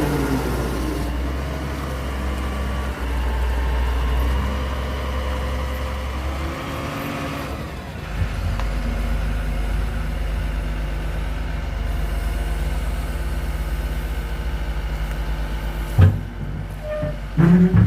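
Excavator's diesel engine running steadily, easing off about seven seconds in and picking up again a second later, with a sharp clank about sixteen seconds in and more knocks at the very end.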